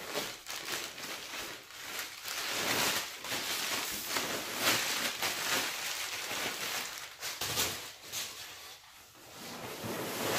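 Crumpled brown packing paper crinkling and rustling as it is pulled out of a long cardboard shipping box, with the box's cardboard flap being handled. The rustling is busiest through the middle and eases briefly near the end before picking up again.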